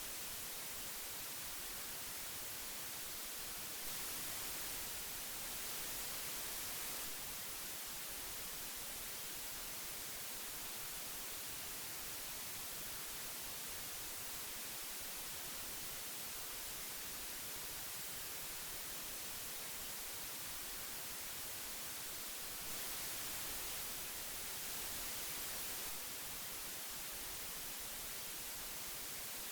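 Steady hiss from old magnetic audio tape, a bright even hiss heavier in the treble, swelling slightly twice for a few seconds, about 4 s in and again about 23 s in.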